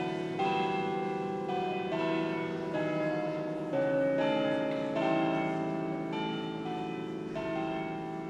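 Music of chiming bell tones playing a slow melody: notes struck about once or twice a second, each left ringing and overlapping the next.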